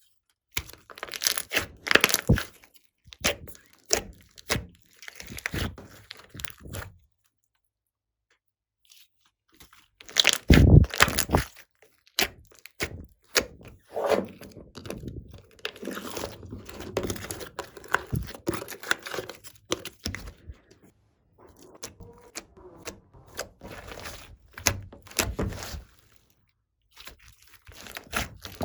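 Slime being squeezed and stretched by hand, crackling and popping with quick clicks, in bouts broken by two short pauses; the loudest burst comes about ten seconds in.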